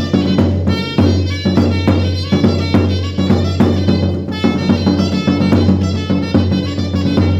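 A band playing: drums keeping a steady beat over a sustained bass line, with pitched instruments above.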